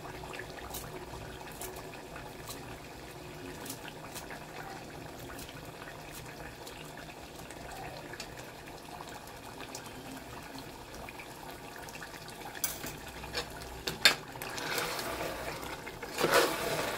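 Mutton gravy simmering on a low flame in an open metal pressure cooker, with faint scattered pops. Near the end a spoon clinks against the cooker and stirs and scrapes through the thick gravy.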